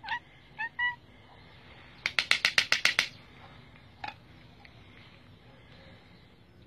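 A cat giving two short, high meows, then a quick loud rattle of about ten clicks within a second, followed by one more brief meow.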